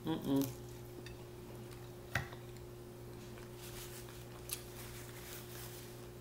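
Faint mouth sounds of eating a crunchy hard-shell taco, with a brief voiced sound at the start and a single sharp click about two seconds in, over a steady low hum.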